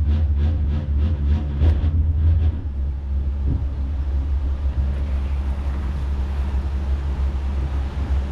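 Wind rumbling on the camera microphone during a mountain bike ride, with a run of evenly spaced rattles, about three a second, that stops about two and a half seconds in, then a steady rush of wind and tyre noise.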